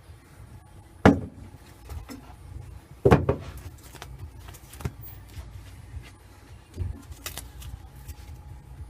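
Metallic clanks and knocks from work in a car's engine bay: two loud ones, about a second and three seconds in, then a few lighter knocks over a low rumble.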